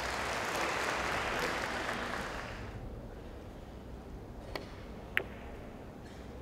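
Audience applause fading out over the first few seconds, then a carom billiards shot: the cue tip clicking on the cue ball and, about two-thirds of a second later, a sharper, louder click of billiard balls colliding.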